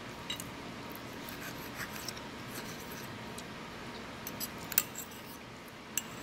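Metal fork scraping and clicking against a plate while cutting through syrupy pancake, light scrapes with a few sharp clicks, the sharpest about five seconds in.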